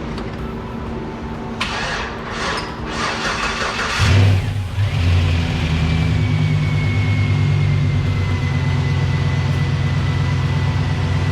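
Chevrolet 5.3-liter LS V8 cranking over for about two seconds and catching about four seconds in, then settling into a steady idle with a thin high whine that slowly falls a little. It is the start-up after the engine's overdue oil change and repair.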